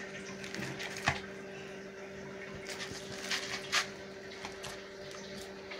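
Hands kneading soft chapati dough in a plastic bowl: a few scattered soft squishes and knocks, over a steady low hum.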